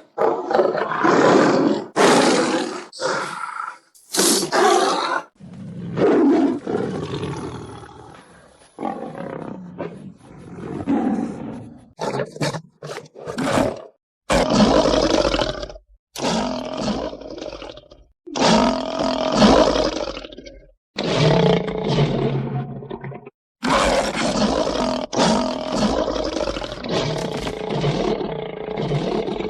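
A rapid series of big-cat roars and snarls edited back to back as sound effects, about fifteen separate calls of a second to several seconds each with abrupt cuts between them, some deep and rumbling.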